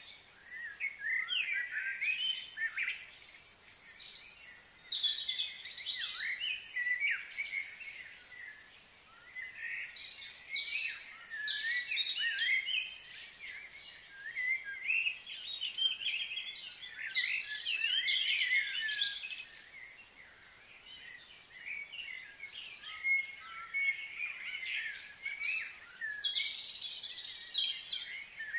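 Small birds chirping and twittering: quick rising and falling calls in busy bouts, with short lulls between them.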